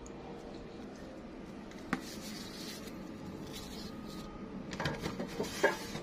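A round metal tin and its lid being handled: a single sharp click about two seconds in, light rustling, then a run of small knocks and clicks near the end, the last one the loudest.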